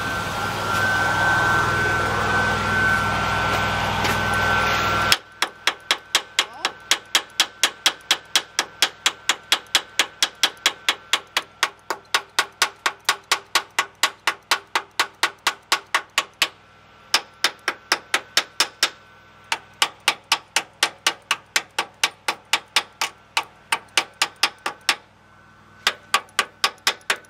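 A chipping hammer rapping on fresh stick welds on a steel chassis, knocking off the flux slag, in quick sharp strikes about three a second with a few short pauses. The strikes begin after a steady hiss and hum that cuts off suddenly about five seconds in.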